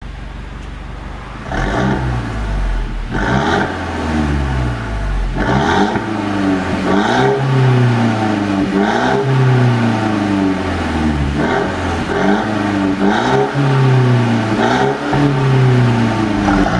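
A Mercedes-Benz E200's turbocharged four-cylinder engine being blipped again and again, the revs rising and falling about seven or eight times. Bursts of popping and crackling from the exhaust come as the revs drop, the effect of a pop-and-crackle tune.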